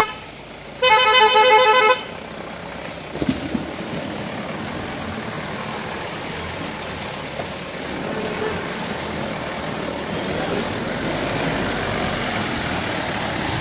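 A vehicle horn sounds for about a second, about a second in: one pitched tone pulsing rapidly. After it comes steady driving noise from the vehicle on the road.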